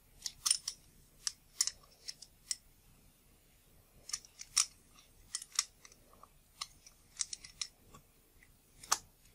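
Small, sharp metallic clicks and snaps from a Nikon Nikkor 35mm f/2 lens's aperture ring and diaphragm lever being worked by hand as the ring is seated on the diaphragm pin. The clicks come irregularly in small clusters, with one louder click near the end.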